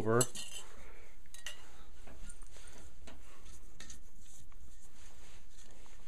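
Metal screw bands being unscrewed from sealed glass canning jars, with scattered light clicks and scrapes of metal on glass.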